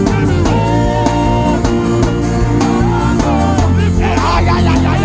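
Live church worship band music: held bass and keyboard notes over a steady drum beat, with voices singing over it from about four seconds in.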